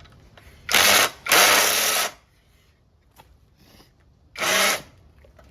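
Cordless impact driver run in three short bursts, the middle one the longest, trying to undo a bolt on the edger that it can't get a good grip on.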